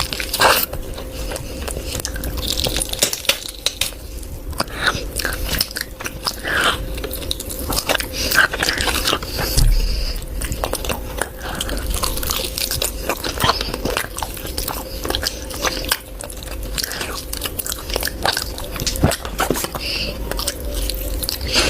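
Close-miked chewing and biting of a person eating a large meal of curry, eggs and meat: a dense, irregular run of wet mouth clicks and smacks.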